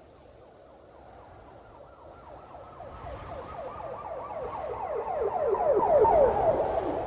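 Police car siren wailing in a fast warble of rapid falling sweeps, several a second. It grows louder to a peak about six seconds in, then begins to fade as its overall pitch slides lower.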